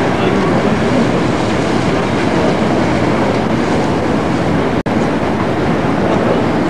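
Steady, loud rumbling noise with no clear pitch or beat, cut off for an instant a little under five seconds in.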